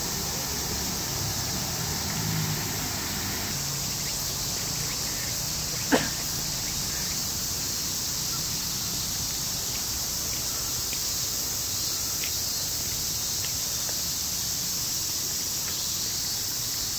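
Steady high-pitched chorus of insects, with one sharp knock about six seconds in.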